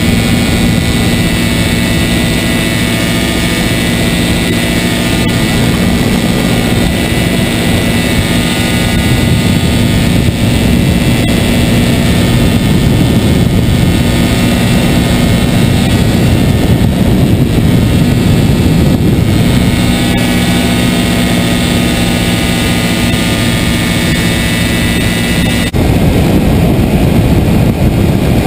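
The small engine of a powered hang glider running steadily in flight, a buzzing drone likened to a mosquito, over rushing wind noise. About 26 s in the sound changes abruptly: the engine tone fades and the wind noise grows.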